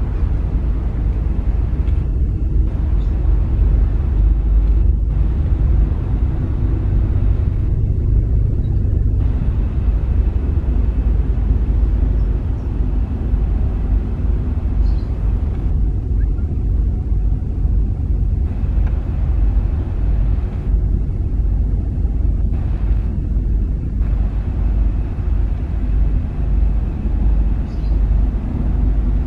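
Steady low rumble of a large car ferry under way, its engines running as it sails out of port.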